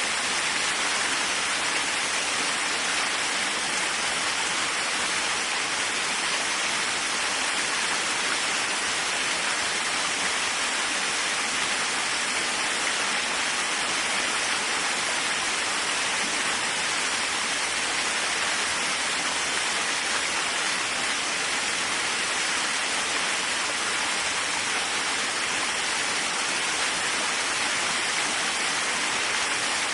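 Waterfall: water falling and splashing in a steady, unbroken rush, mostly a mid-to-high hiss with little low rumble.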